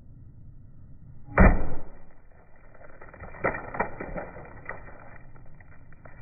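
Sledgehammer striking the exposed battery of a broken iPhone 8 Plus: one heavy thud about a second and a half in, then a few lighter knocks and crackles.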